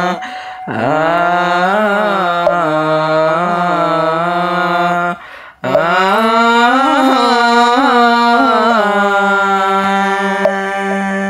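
Buddhist liturgical chanting: a voice sings in long, slow phrases, its pitch gliding up and down on held notes. It breaks off briefly about five seconds in, then takes up the next phrase.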